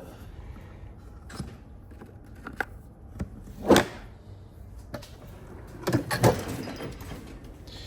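Several separate knocks and clanks of hand tools and metal parts being handled while working on a car, the loudest about four seconds in and two close together near six seconds.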